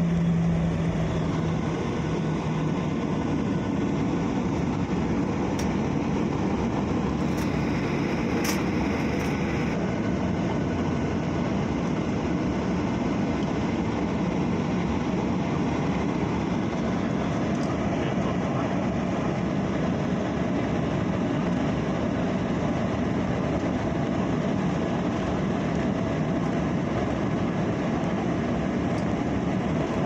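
Steady jet-engine and rolling noise of a Jeju Air Boeing 737 taxiing at low thrust, heard inside the cabin at a window seat over the wing. The level stays even throughout, with no rise of takeoff power.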